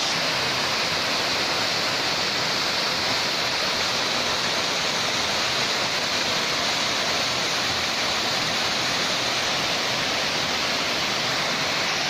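Small waterfall pouring steadily into a rock pool: an even, unbroken rush of water.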